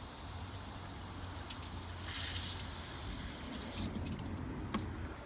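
Water being flushed through a car's heater core and hoses, running and splashing steadily, with a stronger surge about two seconds in. A few light clicks near the end.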